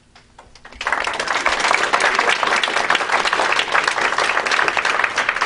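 Audience applause: a few scattered claps, then full clapping from about a second in that holds steady.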